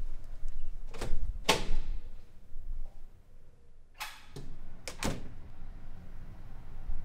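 Heavy metal stairwell door being opened: its latch clacks and it knocks open about a second in. About three seconds later come a few clunks as the door swings shut and latches.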